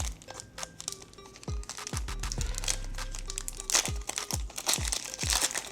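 Foil booster pack wrapper crinkling and tearing open, over background music with a steady kick-drum beat.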